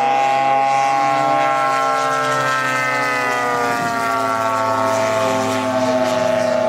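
Engine of a giant-scale radio-control warbird model in flight, a steady note with many overtones. The pitch sinks slowly over the first three or four seconds as the plane passes, then holds.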